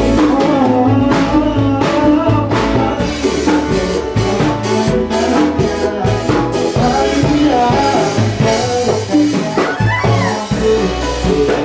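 A band playing a song, with a drum kit keeping a steady beat under a singing voice and other instruments.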